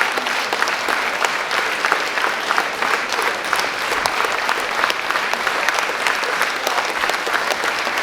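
Concert hall audience applauding with dense, steady clapping.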